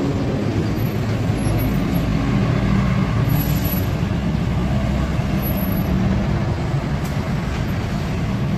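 Street traffic: a steady rumble of vehicle engines running close by, with a low engine hum.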